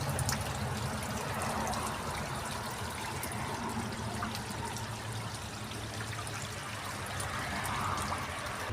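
Water flowing and trickling steadily, with small splashes and drips throughout.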